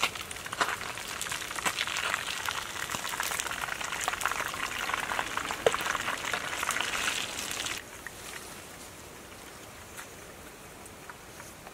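Hot frying oil sizzling and crackling with many small pops, with one brief sharp tick about six seconds in; the sizzle cuts off suddenly about eight seconds in, leaving a quieter steady hiss.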